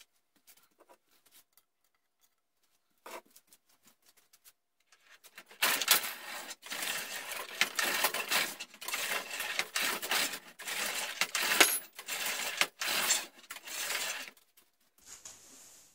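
Hand-powered rifling bench cutting rifling grooves in a steel rifle barrel: the oiled cutter scrapes through the bore as the guide carriage is worked along the bench, giving a run of harsh metallic scraping strokes with short breaks that starts about five seconds in and stops shortly before the end. Before it there are only a few light clicks.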